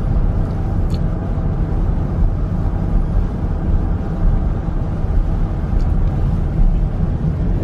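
Steady low rumble of a Dodge Durango R/T's HEMI V8 and tyres, cruising at about 45–50 mph on a snow-covered freeway, heard inside the cabin.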